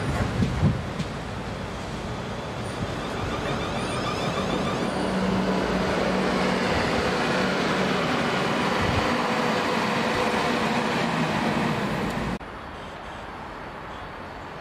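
A train passing close by: a steady rumble with a hum, with a few knocks at first, building to its loudest over several seconds. It cuts off suddenly near the end to a much quieter background.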